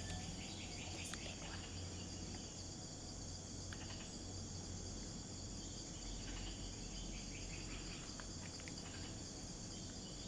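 Steady chorus of forest insects, a continuous high-pitched buzzing, with a few faint scattered clicks.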